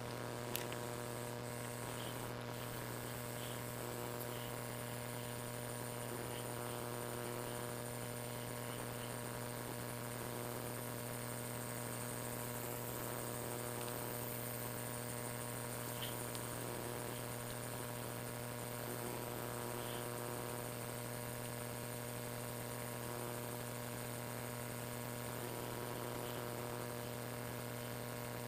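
Steady electrical hum, one unchanging pitch with overtones, with a few faint scattered ticks.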